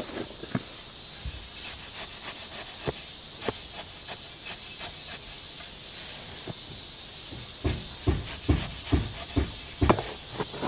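Dry mortar mix of sand and cement being worked by hand in a plastic tub: a tool scraping and rubbing through the gritty mix with scattered scrapes and clicks. Near the end it quickens into a run of louder strokes about twice a second.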